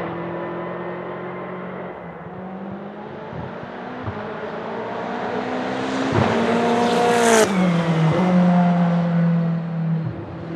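Aston Martin Vantage GTE race car's 4.0-litre twin-turbo AMG V8 accelerating towards and past the listener. The engine note climbs and grows louder, drops sharply in pitch as the car goes by about seven seconds in, then carries on at a steady lower pitch.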